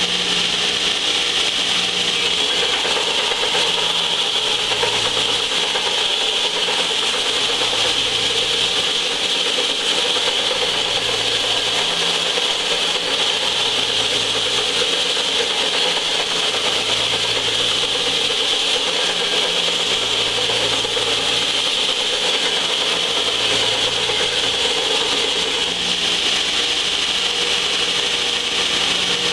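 Large heavy-duty belt sander running steadily, with a cast-iron exhaust manifold pressed against the moving abrasive belt, grinding its warped mating face flat.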